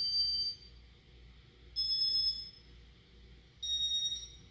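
Three short electronic beeps, about two seconds apart, each at a slightly different pitch and the last one lowest. They come from a Casablanca Four Seasons ceiling fan's electronic control as its settings are stepped through.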